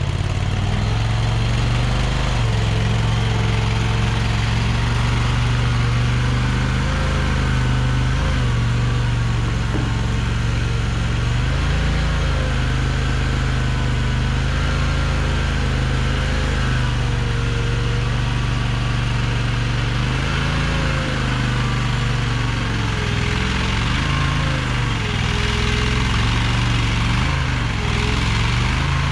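Mini skid steer's engine running steadily with a wavering hydraulic whine over it. The engine note sags briefly several times as the machine takes load.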